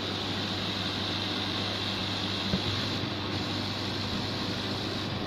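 Dual-head laser cutting machine running while both heads cut: a steady whir of its air-assist and exhaust blowers over a low hum, with a single click about two and a half seconds in.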